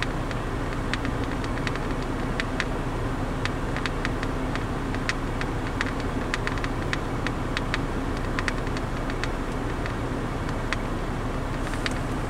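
A van's engine idling steadily, with irregular sharp clicks of keys being pressed hard, again and again, on a ferry check-in kiosk keypad.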